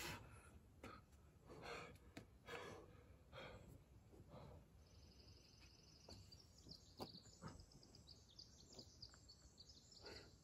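Faint, heavy breathing from a boulderer straining on the wall, a breath roughly every second for the first few seconds. From about five seconds in, a small bird sings a long run of quick high chirps.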